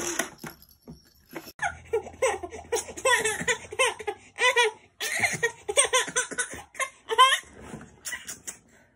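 Baby laughing in strings of short, high-pitched bursts, in two fits with a brief pause near the middle, trailing off near the end.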